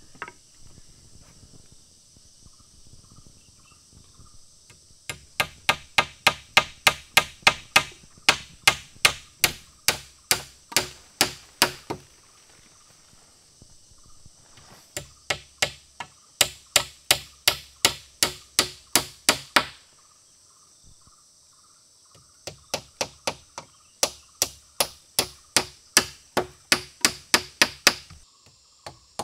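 Rapid, even strikes of a tool on wooden poles, about three a second, in three runs broken by short pauses, over a steady high insect drone.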